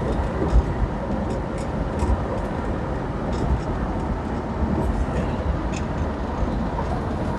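Steady rumble of a 1964 Ford Thunderbird convertible under way, heard from inside the car: tyre and wind noise over its 390 V8, with a few faint ticks.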